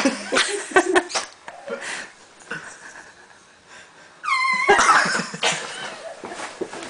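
Fart noises: a few short sputters in the first second, then, about four seconds in, a high squeak falling in pitch that breaks into a loud, noisy blast lasting about a second.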